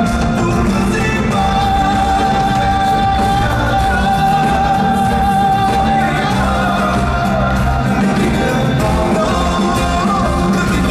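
Live pop song in an arena: a male lead voice sings over a band with a steady bass beat, holding one long note from about a second in for some four seconds.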